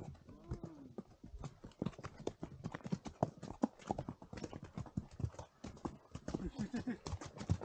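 Horses walking on a dirt and snow trail, their hooves clip-clopping in an irregular run of several hoofbeats a second.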